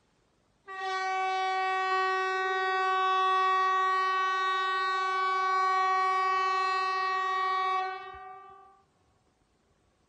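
Hesa Fredrik outdoor warning typhon horn (a new MKT 75/370) sounding the VMA test signal: one steady, unwavering blast of about seven seconds that starts abruptly and then tails off over about a second.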